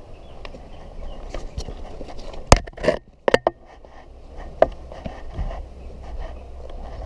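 A rock climber's hands and rock shoes scuffing and tapping on the rock face, heard close up, with several sharp knocks. The loudest knock comes about two and a half seconds in and a quick pair follows just under a second later, over a steady low rumble.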